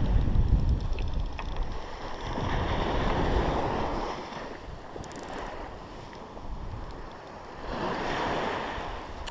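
Sea surf washing onto a beach, swelling and easing in slow surges, with wind rumbling on the microphone.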